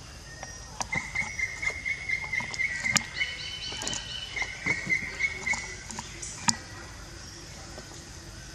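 A young macaque handling a small paper milk carton while drinking from it: scattered crinkles and sharp clicks, the two sharpest about three seconds in and near six and a half seconds. Behind them a high, rapidly pulsed chirping trill comes twice.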